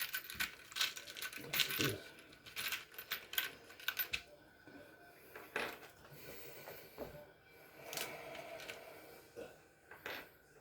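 Small metal screws clinking and rattling as a hand sifts through a tub of them. The clicking is dense for the first few seconds, then thins to scattered clicks.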